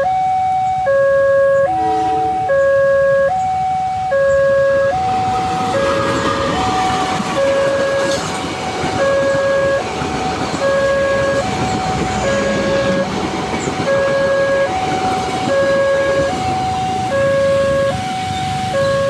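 Level-crossing warning alarm sounding a repeating two-tone ding-dong, high then low, about one pair every second and a half, over the steady hiss of very heavy rain.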